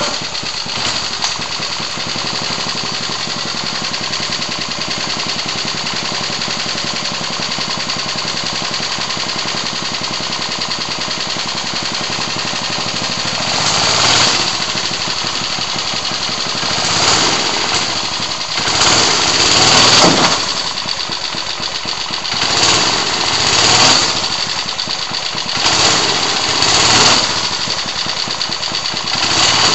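3 hp Briggs & Stratton single-cylinder engine on a go-kart, idling steadily, then revved in a series of short throttle blips, about seven, each rising and sagging back within a second or two. The engine runs cleanly at idle but bogs when revved higher, a fault that turned out to be a dirty carburetor float bowl.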